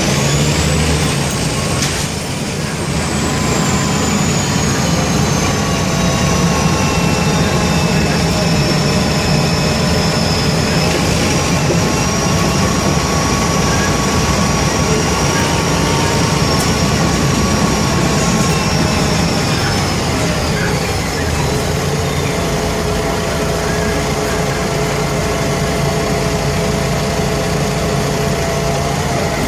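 Mercedes-Benz O345K articulated city bus running, its OM447hLA six-cylinder diesel rumbling steadily through a burst exhaust, with thin whining tones that slide slowly in pitch. About twenty seconds in the whine falls away, and the engine settles to a steady note.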